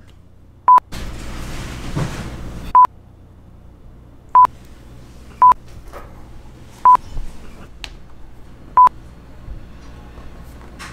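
Six short electronic beeps, all at one pitch, at uneven intervals, with a soft rushing noise between the first and second.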